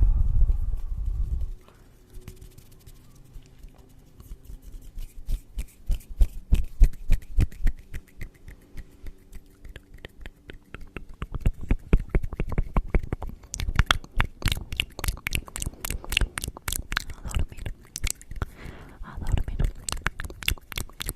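Close-miked ASMR trigger sounds. A low rumble on the microphone stops about a second and a half in. A long run of quick, irregular clicks and taps follows, growing sharper and louder from about halfway.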